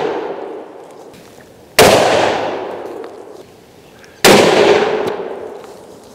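Two rifle shots about two and a half seconds apart, fired through a Warwick jacketed muzzle brake, a blast-forwarding device. Each shot is followed by a long fading echo, and the tail of an earlier shot is dying away at the start.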